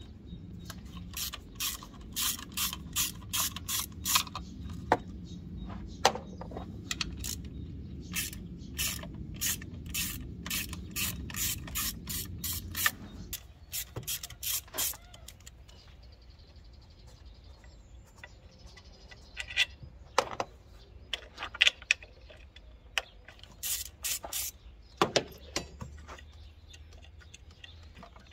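Hand ratchet clicking in quick runs, several clicks a second, as the rocker-cover bolts of a Peugeot TU 1.4 engine are undone. A low steady hum underneath stops about halfway through.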